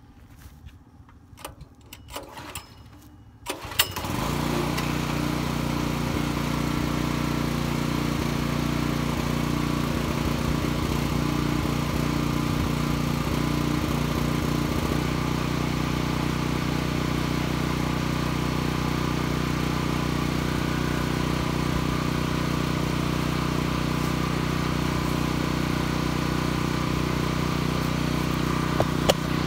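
Sportsman dual-fuel portable generator's small gasoline engine being pull-started with the choke closed: it catches about four seconds in and then runs steadily at an even pitch, not that loud, its note shifting slightly about halfway through.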